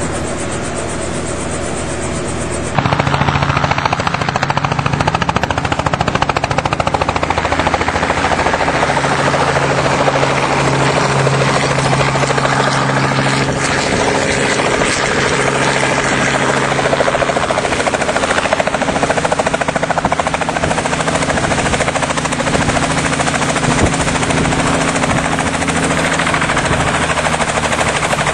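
Small helicopter running with its rotor turning: steady rotor chop over the engine's hum, which gets louder about three seconds in.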